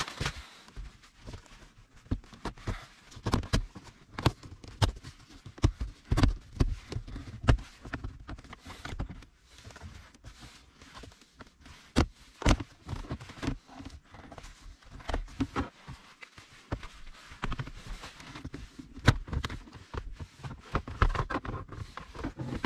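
Irregular sharp clicks and knocks of hard plastic: a plastic trim pry tool levering at a car's lower dashboard trim panel while the panel is handled and pulled loose.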